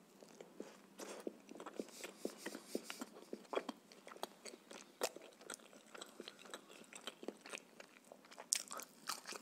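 Close-miked eating: a bite of bread and steady chewing, full of short, sharp mouth clicks and crunches. A sprig of fresh dill is bitten near the end.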